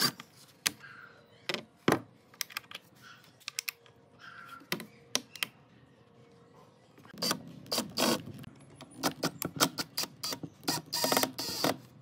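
Scattered sharp clicks and knocks of small hardware and wooden parts being handled and set down on a wooden workbench, coming thicker and faster in the second half.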